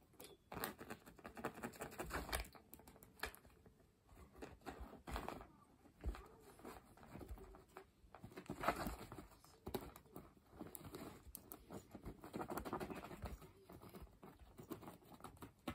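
A cat's paws scrabbling and swiping at a cloth cushion cover on tatami: irregular rustling and scratching of fabric, with scattered clicks and a few soft thumps as it pounces.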